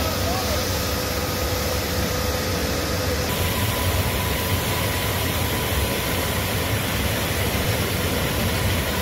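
Steady rushing roar with a deep rumble underneath, the sound of a large industrial tank fire being fought with high-pressure water hoses. A faint steady whine runs through it and jumps higher about three seconds in.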